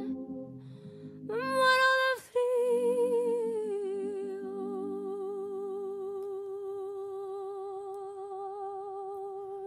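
Background music from a slow song: a short louder note, then a single long note held with a gentle vibrato from about two and a half seconds on. Soft low accompaniment chords fade out midway.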